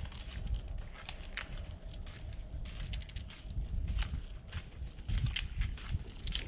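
Boots crunching in ice-crusted snow: irregular crisp crackles and crunches over a low rumble.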